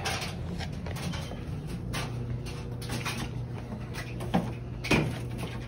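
Footsteps and knocks of handling as a handheld camera is carried through a basement, over a steady low hum. Two short falling squeaks come about four and five seconds in.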